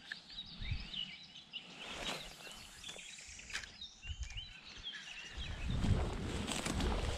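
Small birds chirping and twittering, short high calls coming thick and fast. About five and a half seconds in, louder footsteps and rustling through low grass and undergrowth start up.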